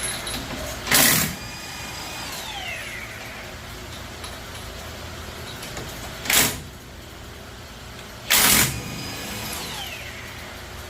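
Power impact wrench loosening wheel lug nuts, fired in three short bursts. After two of them there is a brief whine that falls in pitch.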